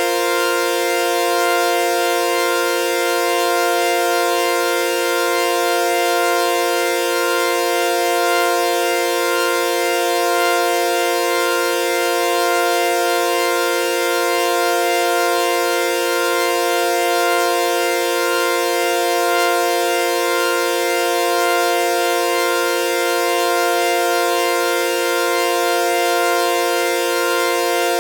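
Synthesized sawtooth-wave F sus4 chord (F, B-flat, C) held steadily, with a gentle swell in loudness about every two seconds.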